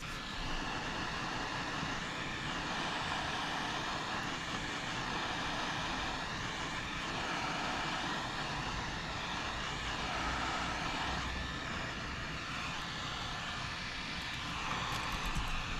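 Heat gun blowing steadily, shrinking heat-shrink tubing over freshly soldered wire joints.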